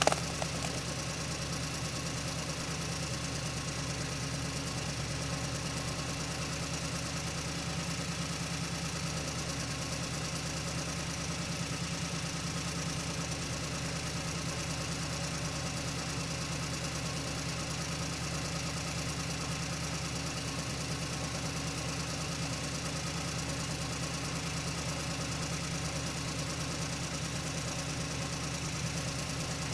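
A machine running with a steady, unchanging engine-like drone, with a short click right at the start.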